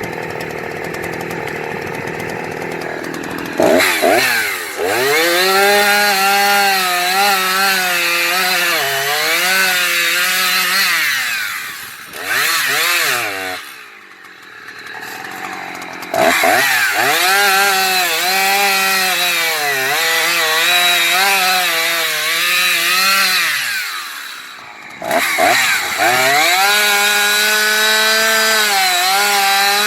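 Husqvarna 357XP two-stroke chainsaw running at full throttle through three long cuts in wood, its pitch sagging and recovering under load, dropping back briefly between cuts.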